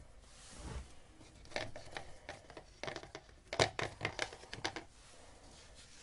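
Handling noise: irregular short rustles and sharp light clicks as gloved hands work at a plastic mixing cup of resin, the loudest clicks in a cluster a little past the middle.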